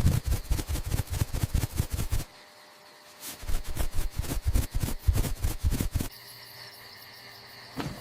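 Two bursts of rapid, heavy knocking and rattling, each a couple of seconds long, separated by a short lull and followed by faint hiss.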